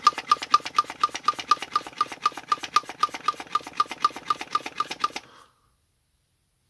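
Hand pump inflating a stroller's inner tube with quick, even strokes, about four a second, each with a short squeak; the pumping stops about five seconds in, leaving the tube pressurised so any further leak can be heard hissing.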